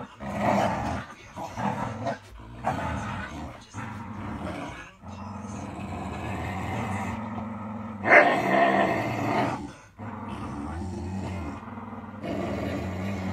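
Dogs growling in play while tugging on a rope toy, a continuous growl that swells into a louder outburst about eight seconds in.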